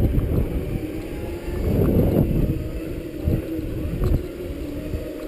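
Wind noise on the microphone of a camera moving along on a Segway: a low rumble that swells and eases, with two short knocks about three and four seconds in.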